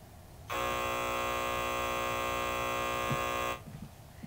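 Game-show style buzzer sounding once, a steady buzz for about three seconds that starts half a second in and cuts off suddenly: the signal that a player is out of the round.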